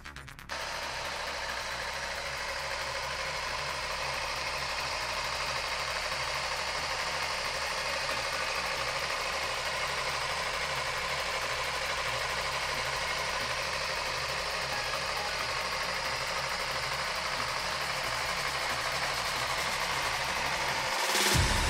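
Kawasaki Z250's 249 cc parallel-twin engine idling steadily. Near the end the sound gets louder.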